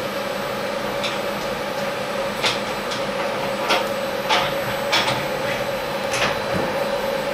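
Sharp metal clicks and knocks, about six spread out, as steel clamp parts are handled and set against a machine vise on a milling machine's steel table, over a steady machine hum.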